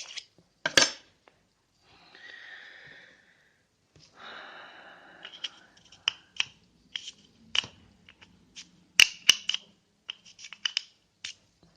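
Needle file scraping the polymer trigger group of a Hatsan Marine Guard pump shotgun. A sharp click comes about a second in, then two longer scraping passes, then a run of short, irregular rasping strokes and ticks. The file is easing a tight spot on the hammer to cure light primer strikes.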